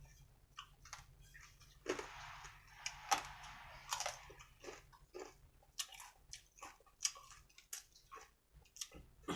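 A person chewing and biting crunchy food close to the microphone: a run of irregular crunches and mouth clicks, with a brief rustling hiss about two seconds in.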